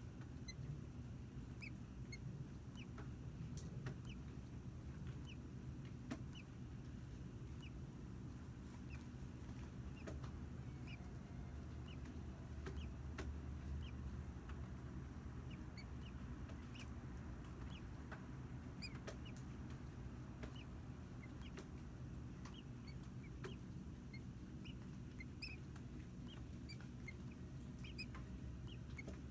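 Faint, short high peeps at irregular moments from day-old American robin nestlings in the nest, over a steady low hum. A few soft clicks come through as well.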